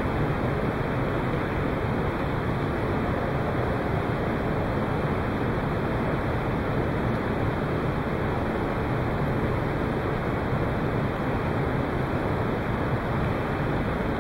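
Steady, even rushing background noise of the playing hall, with no distinct ball clicks or other events standing out.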